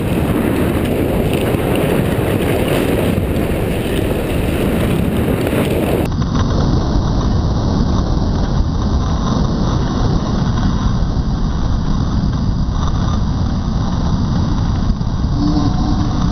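Loud, steady wind rush on the microphone of a camera carried at skating speed around a short track speed skating rink.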